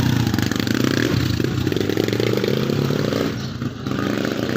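Honda 125 single-cylinder motorcycle engine running through a gutted 'kalkal' exhaust pipe with its baffles removed, a loud, rapid firing note that drops briefly about three and a half seconds in and then picks up again.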